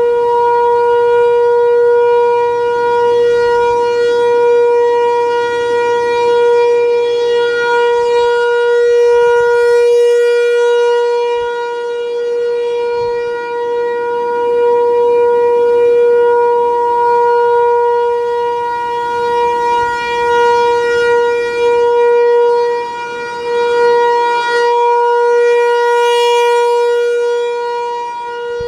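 American Signal Corporation T-128 outdoor warning siren sounding a steady tone at full speed. It holds one unchanging pitch, and its loudness swells and dips slightly as it sounds.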